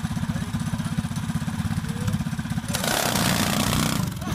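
Engines of a quad ATV and a small-engine go-kart running side by side, then opened up hard about two-thirds of the way in, turning louder and rougher for about a second.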